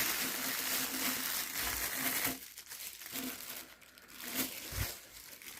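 Plastic crinkling and rustling while a toilet wax ring is handled, for about two seconds, then quieter handling with a few soft knocks.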